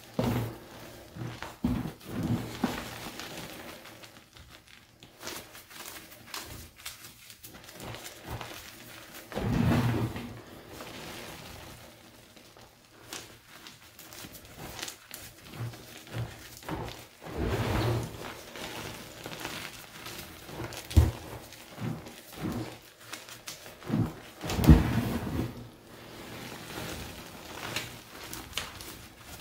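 Hands crushing, squeezing and raking through a box of crumbled Picsil gym chalk: soft powdery crunches in irregular bursts, with a few louder crunches about 10, 18, 21 and 25 seconds in.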